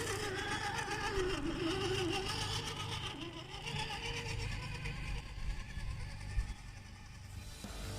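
Radio-controlled Axial SCX10 II rock crawler's electric motor and gears whining, the pitch wavering up and down with the throttle; it eases off near the end.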